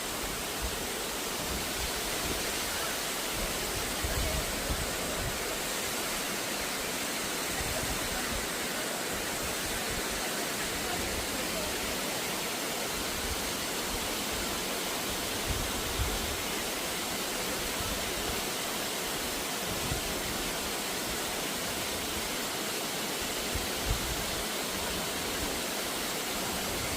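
Mountain valley stream water rushing steadily.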